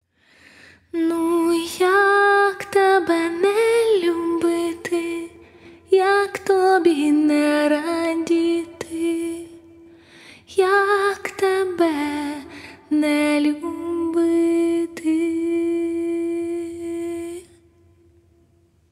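A woman singing a slow melody with vibrato in three phrases, the last held as one long note before it fades out near the end.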